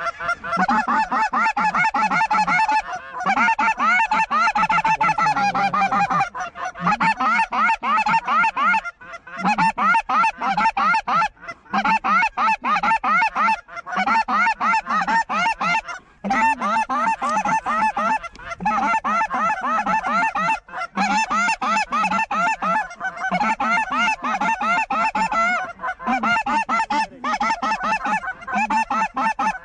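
A large flock of geese calling overhead: many honks and yelps overlapping into a near-continuous din, with a few brief lulls.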